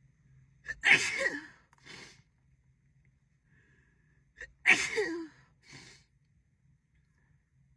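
A woman sneezing twice, about four seconds apart, each sneeze with a quick catch of breath just before and a short, softer breath after it, part of a sneezing fit.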